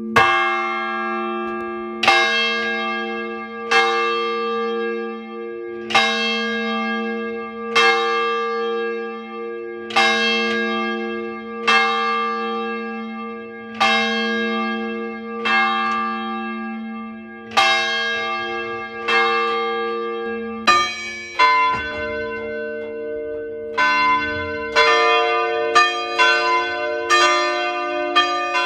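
Large church bells tolling: one stroke about every two seconds, each ringing on with a long hum into the next. About twenty seconds in the pattern changes to quicker strokes on bells of other pitches.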